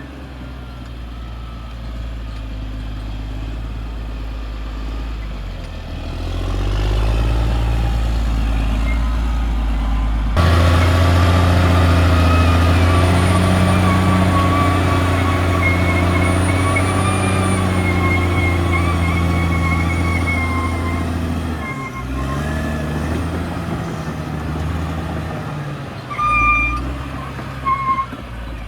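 Caterpillar D6R XL bulldozer's diesel engine running under working load, rising in level about six and ten seconds in and easing off a little after twenty seconds. Short reversing-alarm beeps sound near the end.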